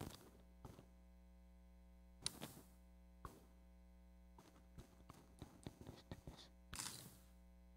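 Near silence over a steady electrical hum, broken by a few soft clicks and short rustles of items being handled on the altar beside the microphone. The clearest come about two seconds in and near the end.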